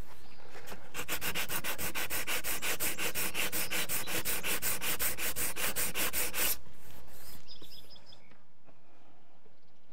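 120-grit sandpaper rubbed by hand over cured Bondo filler in screw and nail holes: quick, even back-and-forth scrubbing strokes, about seven a second, which stop at about six and a half seconds.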